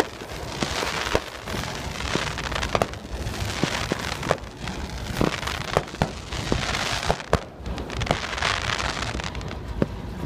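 Fireworks crackling: many irregular sharp pops and cracks over a steady hiss.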